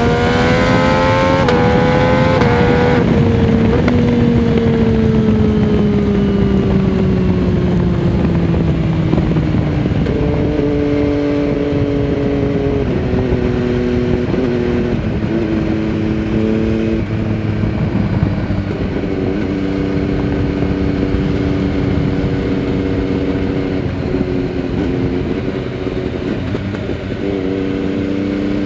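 MV Agusta Dragster 800 RR's three-cylinder engine through a Fresco Trio Corse aftermarket exhaust with the dB-killer fitted, heard from the rider's seat at speed. It pulls briefly, then rolls off with the pitch falling slowly for several seconds. It then runs at part throttle, the pitch stepping up and down several times, with wind rush throughout.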